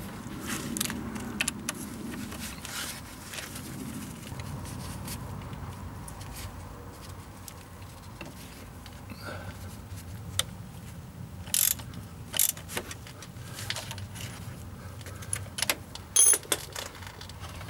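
Metal hand tools, a ratchet wrench and a belt tension lever, clinking and clicking irregularly against an auxiliary drive belt tensioner roller as the belt is tensioned. There are a few sharper clicks about two-thirds of the way in and again near the end.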